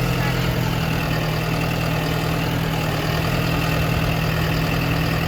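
Farm tractor engine running steadily, a constant low drone heard from on board the tractor.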